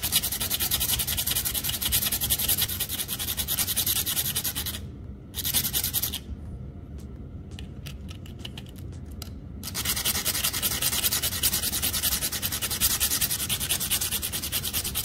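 Stripped copper wire tips being rubbed rapidly back and forth on fine sandpaper to sharpen them to a point: a fast, dense scratching. It drops away for several seconds in the middle, then picks up again.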